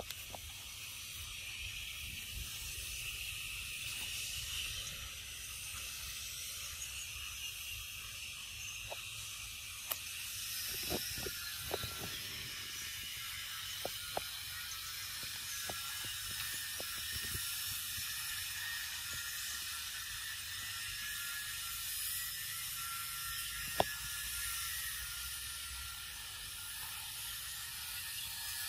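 Steady insect chorus, a continuous high buzzing drone, with a few faint clicks and one sharper click near the end.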